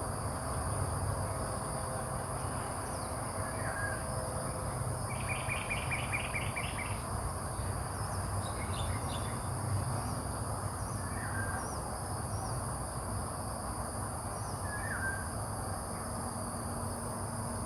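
Outdoor ambience: a steady low rumble and a constant high buzz, with short bird chirps a few times and a quick run of about eight bird notes near the middle.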